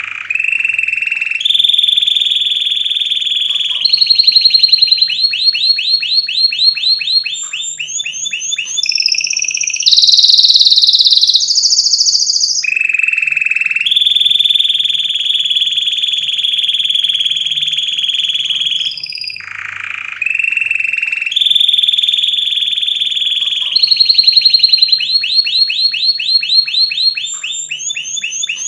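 Domestic canary singing loud, continuous song. It moves through a series of tours: long, even rolling trills alternate with runs of quick repeated notes, changing every few seconds.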